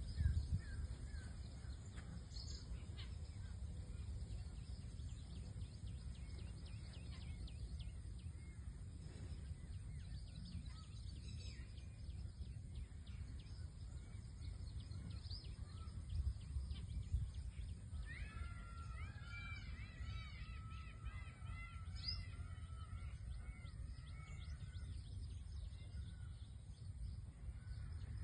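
Steady low outdoor rumble, with a bird calling about two-thirds of the way through: a run of short, harsh, repeated calls lasting several seconds.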